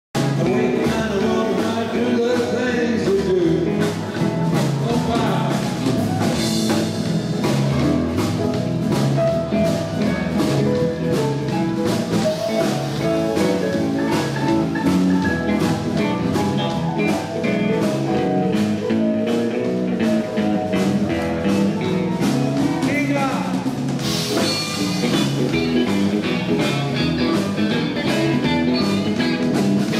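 A live rock band plays: electric guitars lead over bass guitar, drums and keyboard, with a steady beat.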